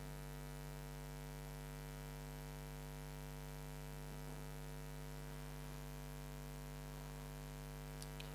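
Steady electrical mains hum with faint hiss, a low buzz with many evenly spaced overtones that does not change. Two faint short clicks sound near the end.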